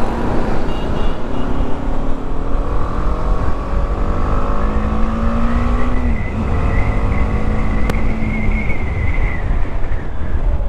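BMW G 310 GS's single-cylinder engine pulling hard under acceleration over heavy wind rush, its pitch climbing for a few seconds, dropping sharply at a gear change about six seconds in, then holding steady.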